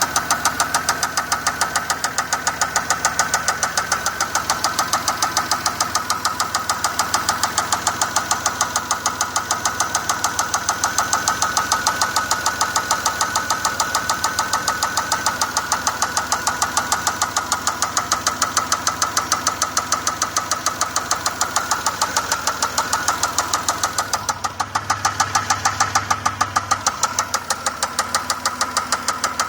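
Pontiac 3800 Series III V6 running with a loud, steady, rapid knock, roughly four strikes a second. The owner reports the rocker arms and rods check out and fears worn bearings.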